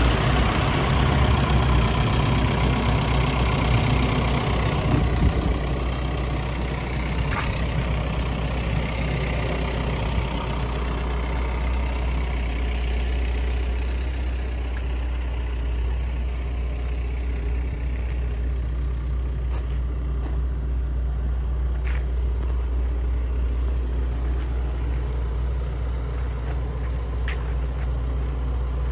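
Diesel engine of a JCB 86C-1 midi excavator idling steadily with a low hum, louder and brighter for the first five seconds or so, then even. A few faint clicks are heard later on.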